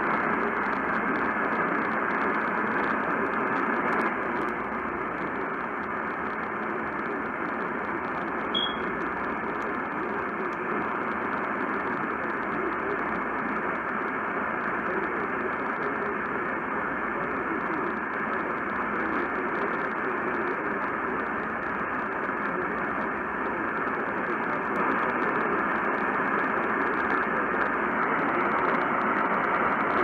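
Steady AM radio static hissing from a Sparc portable radio's speaker, with a faint steady whistle that drops out near the end.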